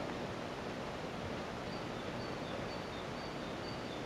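Steady outdoor background noise, with faint short high chirps repeating about twice a second from midway on.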